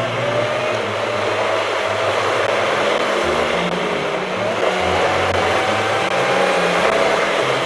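Car on the move: steady road and tyre noise with the engine's pitch rising as it accelerates, once near the start and again about halfway through.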